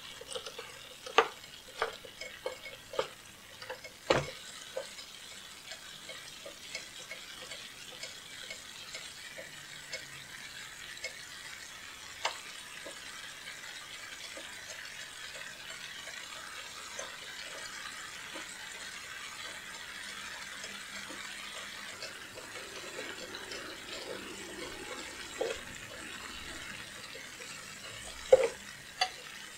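Ground beef and diced onion sizzling steadily in a stainless steel pan as their juices cook off. A wooden spatula clicks and scrapes against the pan several times in the first few seconds and again near the end.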